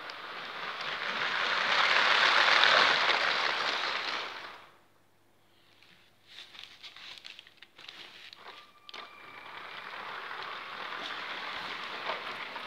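A Lego City 60197 passenger train running on plastic track, its rattle growing loud as it passes close by about two seconds in and dying away by about four and a half seconds. A few scattered clicks and knocks follow, then the running train is heard again, steady, from about ten seconds on.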